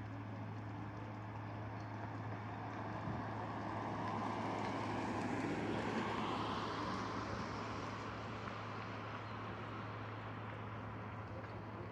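A passing engine swells to its loudest about six seconds in and then fades, over a steady low hum.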